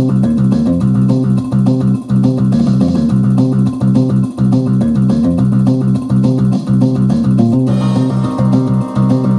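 Music track playing through a pinball machine's speakers from its replacement PinSound PLUS sound board, selected as music 4 in the sound test. It is a bass-heavy riff of quick, repeating plucked low notes, and about eight seconds in higher held notes join it.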